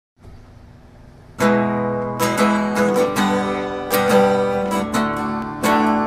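Guitar strumming chords, coming in sharply about a second and a half in after a faint hiss, then struck again every half second or so.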